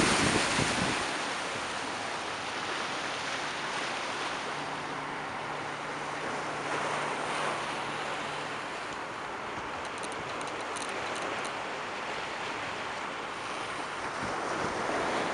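Steady rushing of wind and breaking surf, with wind buffeting the microphone, loudest at the very start. A faint low engine hum runs underneath for a few seconds in the middle.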